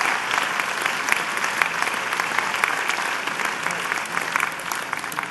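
Audience applauding, with many hands clapping, fading away near the end.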